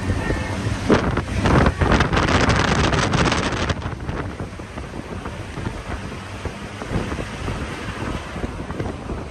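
Wind buffeting the microphone over a low vehicle rumble, heaviest from about one to nearly four seconds in, then easing.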